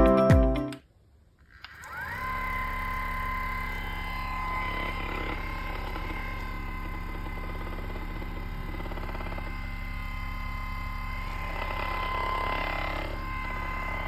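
Ekrin Bantam mini massage gun switched on: its motor whines up to speed in under a second, then runs steadily with a fast percussive buzz. Before it starts, music ends within the first second and there is a short pause.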